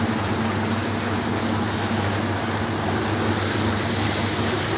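Whirlpool bath's hydromassage pump running with the jets on: a steady low hum under an even rush of churning water and air.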